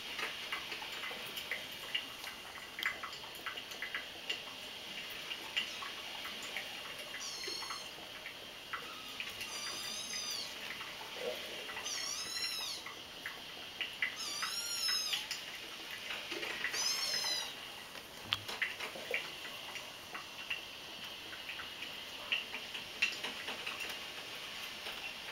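Young kittens mewing in a series of about five short, high-pitched calls, each rising and falling, a couple of seconds apart, over light scattered clicks and scuffs from the kittens playing on the rug.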